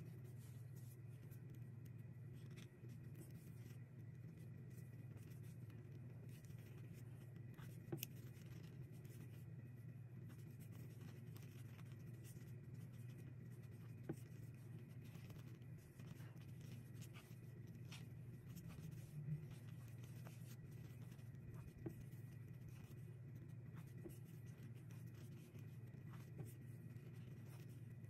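Faint steady low hum with four light clicks spread through, knitting needles tapping together and yarn rubbing as stitches are worked.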